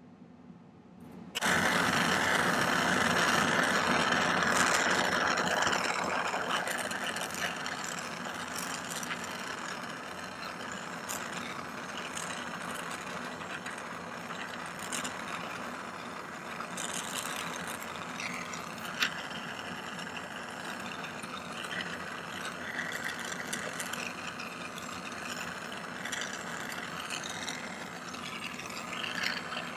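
Jeweller's gas torch flame hissing steadily as it heats sterling silver wire to flow hard solder. It starts suddenly about a second in and is loudest for the first few seconds, then settles to a steady lower hiss. A single sharp click comes about two-thirds of the way through.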